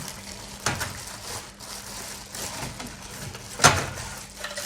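Parts of a perfume holder being handled and fitted together: a few scattered clicks and knocks, the loudest about three and a half seconds in.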